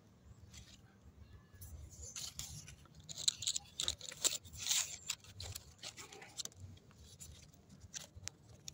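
Fig leaves rustling, with small crackles and tearing sounds, as a ripe Kadota fig is twisted and pulled off its branch by hand. The stem resists, so the handling goes on for a while, busiest about three to five seconds in.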